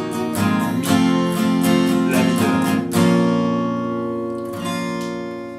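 Acoustic guitar strummed steadily, then about three seconds in a final D minor chord is strummed and left to ring, slowly dying away.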